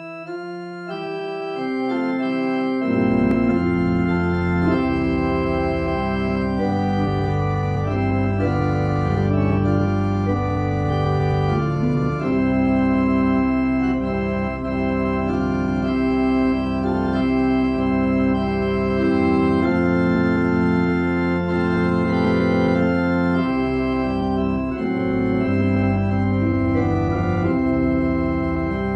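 Organ playing a hymn tune in sustained chords, with no singing; deep bass notes join about three seconds in.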